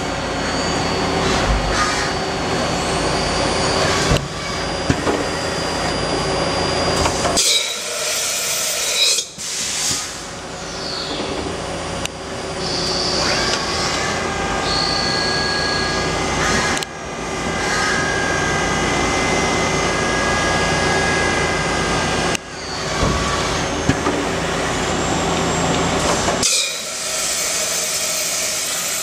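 Mazak VTC-16B CNC vertical machining center running, a steady mechanical whine and hum with a few held tones. The sound drops away sharply and starts up again several times.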